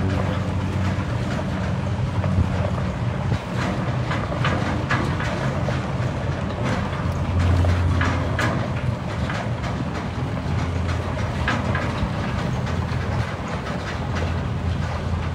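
A utility vehicle's engine running steadily as it tows a metal big-cat transport cage along a bumpy dirt track, with frequent rattles and clanks of loose metal throughout.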